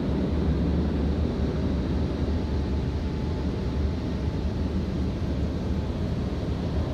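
Automatic car wash running, heard from inside the car's closed cabin: a steady low rumble.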